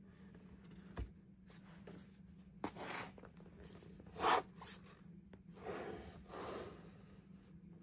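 Handling noise from a 3D-printed plastic battery box being gripped, lifted and turned on a cutting mat: a soft knock about a second in, then several rubbing and scraping sounds, the loudest a little after four seconds. A faint steady hum runs underneath.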